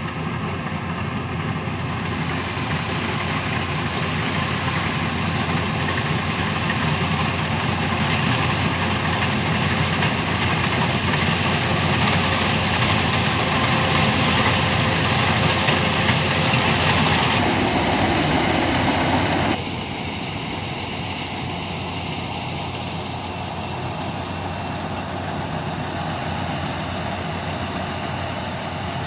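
Yanmar rice combine harvester running as it cuts and threshes standing rice: a steady machine drone that grows louder as it comes closer, then drops abruptly to a quieter steady running about two-thirds of the way through.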